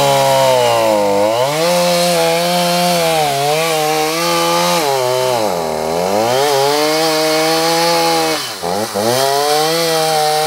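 An engine running loudly with a buzzing tone; its speed drops sharply and picks back up three times.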